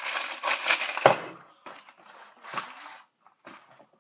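Small household objects being rummaged through, rustling and clinking, busiest in the first second and then a few scattered clatters.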